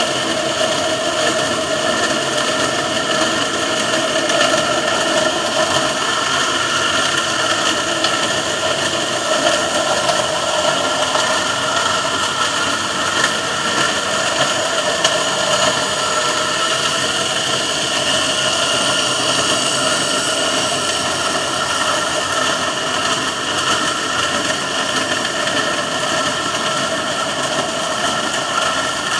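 A passing freighter's engine and propeller heard underwater: a steady, unbroken hum of several held tones over a hiss.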